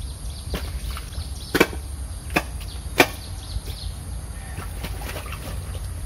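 A hand digging tool chopping into mud in a drain: a few separate sharp knocks, the two loudest about a second and a half and three seconds in.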